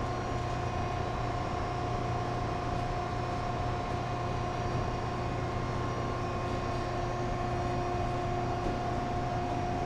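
Steady machinery hum, with a few constant tones over a low rumble, unchanging throughout.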